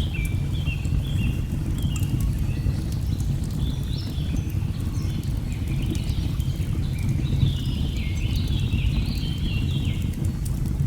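Layered nature ambience: a steady low rush of falling water under birds singing in quick runs of stepped notes, with scattered small crackles of a wood fire.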